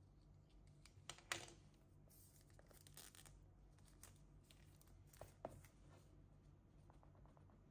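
Clear plastic wrap on a small cardboard box crinkling and tearing as it is peeled off, with the box rubbed and turned in the hands; the sharpest snaps come about a second in and again twice about five seconds in.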